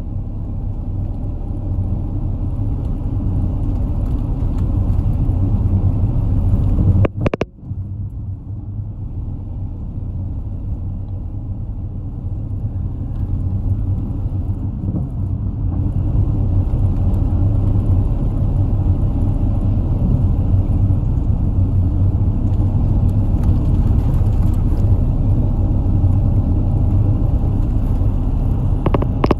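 Cabin noise of a community route bus on the move: steady low engine and road rumble. A sharp click comes about seven seconds in, with a momentary dip, and the rumble grows louder from about halfway through.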